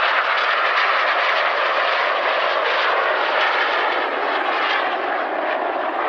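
Steady rushing jet noise from two BAE Hawk T1 jets, each powered by a single Adour turbofan, flying a crossing and pull-up manoeuvre, easing off slightly toward the end.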